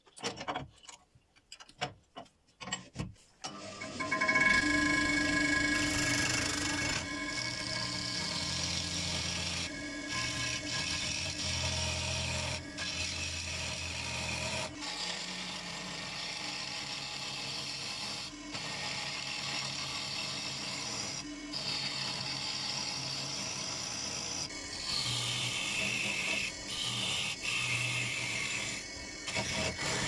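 A few light knocks, then a wood lathe starts about four seconds in and keeps running while a gouge cuts a square block of bird cherry round. The cut makes a steady rushing hiss over the lathe's hum, with a low rumble through the first half.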